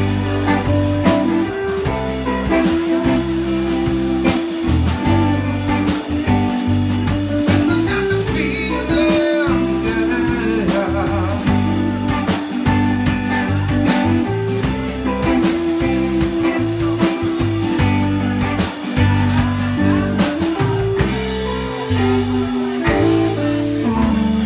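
Live blues band playing: electric guitars and bass over a drum kit keeping a steady beat.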